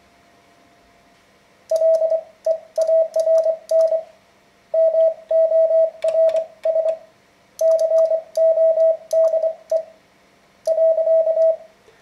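Morse code sent by hand on a Vibroplex semi-automatic 'bug' key, heard as a steady mid-pitched CW beep keyed into dits and dahs. It starts about two seconds in and runs in four groups with short pauses between them, and crisp clicks sound at the start of many elements.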